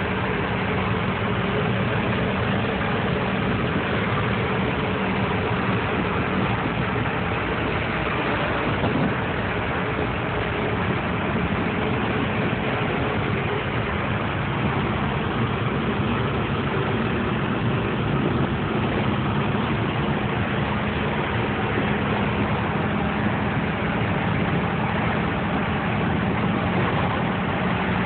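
1941 Ford pickup's engine and road noise heard from inside the cab while cruising at a steady speed. There is a constant low hum and no changes in pace.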